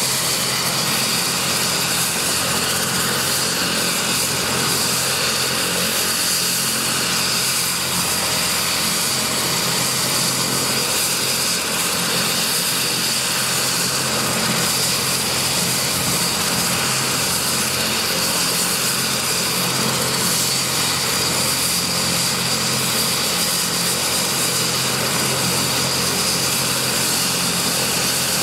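Kazan Ansat helicopter's twin Pratt & Whitney Canada PW207K turboshaft engines running at ground idle with the rotor turning. It makes a steady high turbine whine over a low rotor hum.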